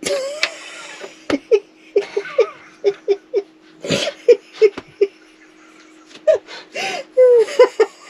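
Laughter: many short giggling bursts in quick runs, at a fairly high pitch, over a faint steady hum.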